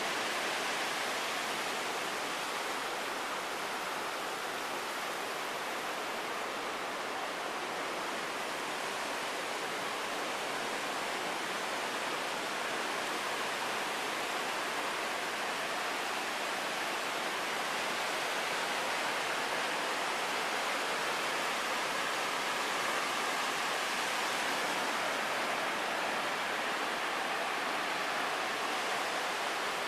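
Ocean surf: a steady, even rush of waves breaking, without distinct separate crashes.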